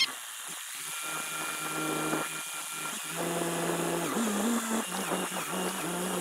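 Carelift ZoomBoom telehandler's engine and hydraulics running under load as the boom pushes hay blocks into a trailer, its hum stepping up and down in pitch several times. A sharp click right at the start.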